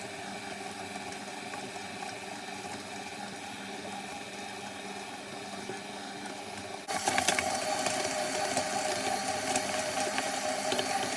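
Electric mixer running steadily as it kneads bun dough with pandan or chocolate paste mixed in. About seven seconds in it suddenly gets louder and stays that way.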